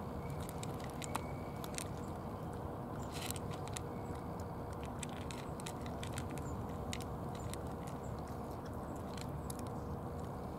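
Two cats crunching dry kibble from plastic dishes: a run of crisp, irregular crunching clicks over a steady low background rumble.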